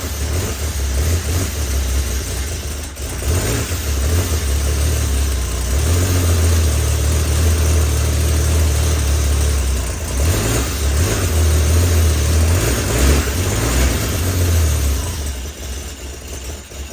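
Rebuilt engine of a 1976 mail jeep running loudly and unevenly on its first start after the rebuild, surging up and down, then dropping away near the end. It runs only "kinda" well.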